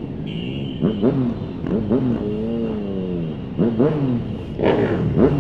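Several motorcycle engines being revved in a group protest ride, throttles blipped so the pitch swings up and falls back, with one longer rev in the middle.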